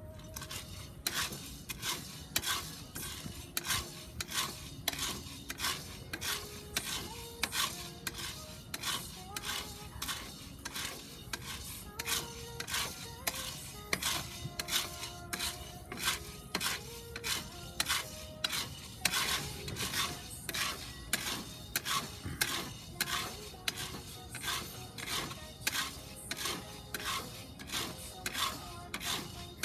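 Wooden spoon stirring green coffee beans in a round cast-iron pot: the beans rasp and rattle against the iron in steady strokes about two a second, early in the roast before any cracking.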